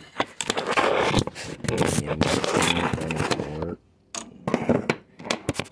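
Handling noise from a phone being set upright on a workbench: rubbing and scraping against the phone, with a man's voice mumbling indistinctly under it, then a short lull and a few sharp knocks near the end.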